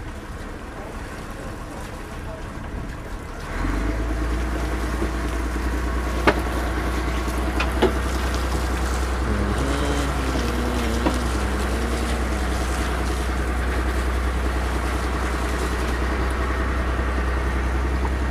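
A fishing boat's engine running steadily, its low hum setting in suddenly about three and a half seconds in. Two sharp knocks follow a few seconds later.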